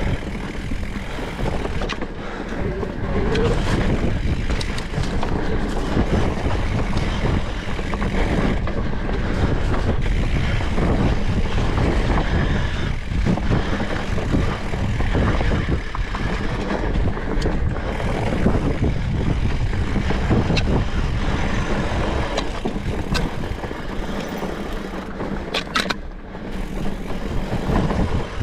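Specialized Turbo Levo electric mountain bike ridden along a dirt trail: a steady rush of tyre and wind noise on the action-camera microphone, with frequent short knocks and rattles from the bike.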